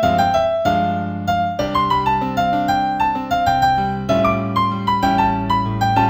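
Solo piano improvisation in C major at about 96 beats a minute: a melody of single struck notes over held low chords.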